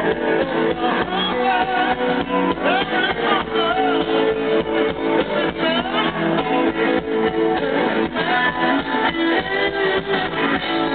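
Rock music: a band playing with strummed guitar and a steady beat, a melody line wavering in pitch above it.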